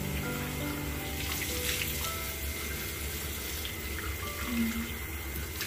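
Tap water running steadily into a bathroom sink during face washing.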